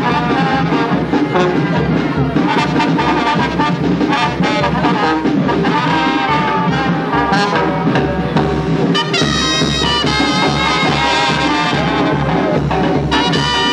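Marching brass band playing, with trumpets, trombone and sousaphone over a steady low beat; the high brass comes in fuller about nine seconds in.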